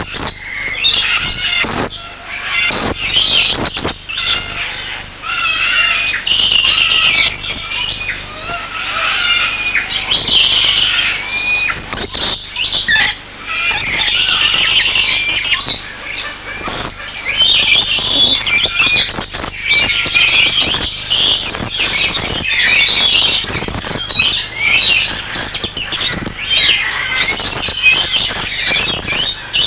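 Many caged parrots squawking and chirping at once, a dense, continuous chorus of short shrill calls.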